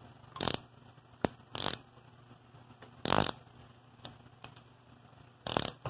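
Ratchet wrench working the 13/16 nut on a Gibson tractor's brake adjuster: a handful of short rasps of ratchet clicking a second or more apart, with one sharp click about a second in. The nut is being backed off to release tension on the brake band.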